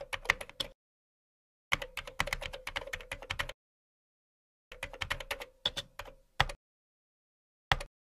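Keyboard typing sound effect: rapid key clicks in short runs broken by dead silence, ending with one brief burst near the end, laid in time with title text typing onto the screen.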